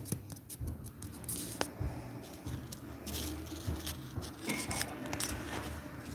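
Handling noise from a phone held in the hand: scattered light clicks and rustles over a low steady hum.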